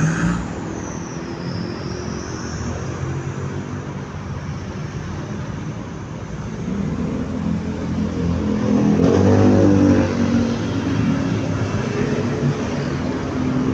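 Steady street traffic, with a motor vehicle's engine growing louder as it passes close from about seven to eleven seconds in.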